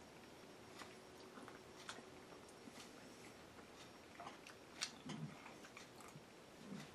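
Faint sounds of a person eating: scattered light clicks of a spoon against a bowl and quiet chewing, over low room tone.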